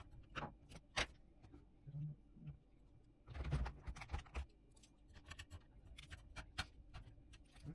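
Scattered light clicks and taps of small hard parts being handled, with a denser clatter of knocks about three and a half seconds in.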